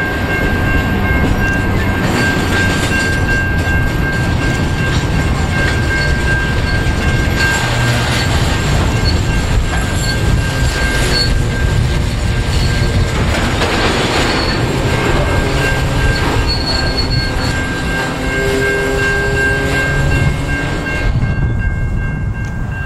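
Freight train of grain hopper wagons rolling past: a steady rumble of wheels on the rails, with a sustained high-pitched wheel squeal and fainter squealing tones that come and go.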